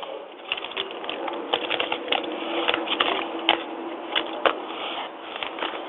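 Irregular small clicks and taps of brass propane fittings and a hose being handled and threaded together by hand.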